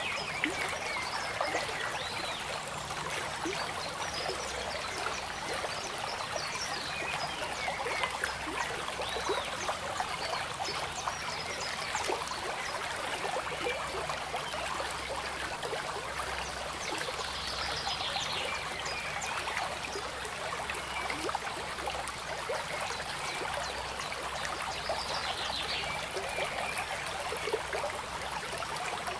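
Running water trickling and gurgling steadily, with many small bubbling sounds and no pauses.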